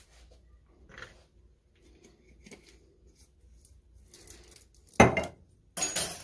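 Kitchen utensils being handled: a few faint clinks of a metal measuring spoon and glass, then a sharp thump about five seconds in, followed by a loud, irregular clatter near the end.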